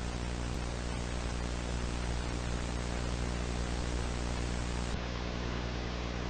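Steady hiss of static over a low buzzing hum. About five seconds in, the hiss turns slightly duller as its highest part drops away.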